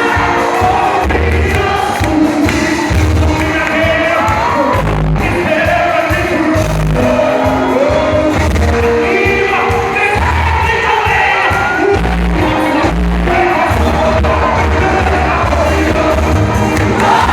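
Live gospel music: singers over a band with heavy bass and drums, the crowd joining in.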